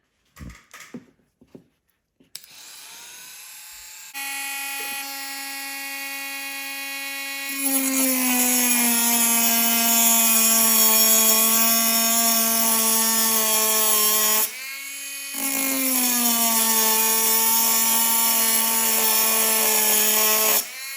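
A Ryobi cordless rotary tool with a cutting disc spins up to a steady whine, then cuts a slot into a broken motor mount screw. The whine drops in pitch under load while a loud grinding hiss rises. About two-thirds through the disc lifts off for a moment, the whine returning to its higher pitch, before cutting again. Near the end it lifts off once more. A few light handling clicks come before the motor starts.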